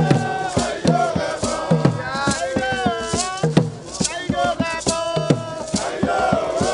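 Traditional Edo music: voices singing over a steady drumbeat and shaken rattles.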